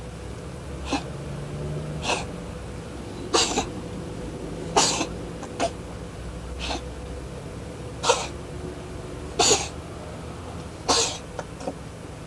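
A cat coughing in a series of about nine short, breathy coughs, roughly one every second or so. The owner is unsure whether they are coughs or sneezes.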